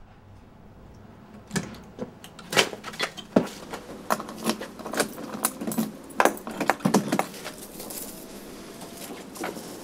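A bunch of metal keys jangling and clinking in a hand at a door's knob lock, in many irregular jingles over several seconds.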